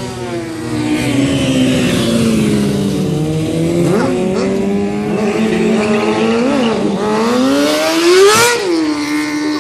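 Sportbike engine held at steady revs, with a few quick throttle blips in the middle and a sharp rev up and back down near the end.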